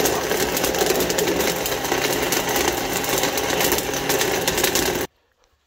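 Electric countertop blender (mixer-grinder) running steadily, blending plums and water into juice, then stopping abruptly about five seconds in.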